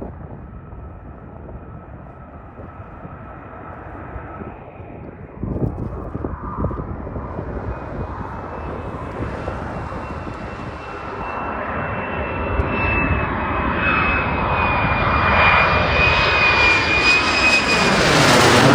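Fighter jet engine with a high steady turbine whine over a broad rumble, growing louder as the jet approaches and peaking near the end as it passes close by, where the sound sweeps and swirls.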